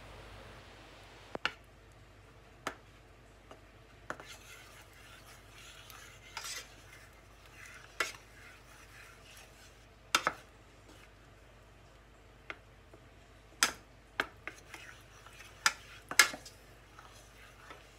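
Wooden spoon stirring melting butter in a stainless steel saucepan. The spoon scrapes around the pan and knocks sharply against its sides, with scattered clicks every second or two; the loudest come about ten seconds in and near the end.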